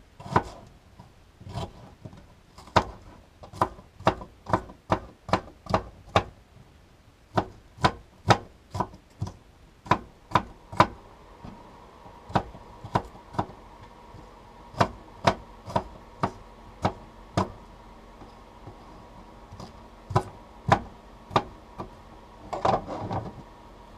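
Kitchen knife chopping an onion on a cutting board: sharp knocks of the blade hitting the board, one or two a second, with a pause of a couple of seconds before the end and a brief scrape near the end.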